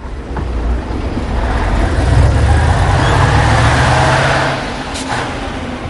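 A large vehicle's engine runs with a heavy low rumble, swelling louder about two seconds in and easing off near the end. A sharp click comes early and another about five seconds in.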